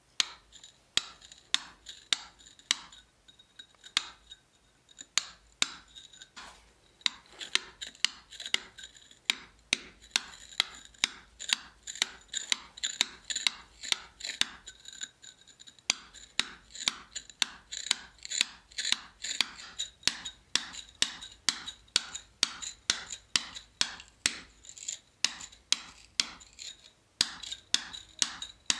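Hammer blows on a steel hand chisel cutting a hole into the top of a stone block: steady strikes about two or three a second, each with a short metallic ring, with a few brief pauses.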